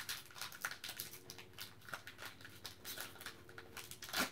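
Foil booster-pack wrapper crinkling as fingers work it open: a quick, irregular run of small crackles.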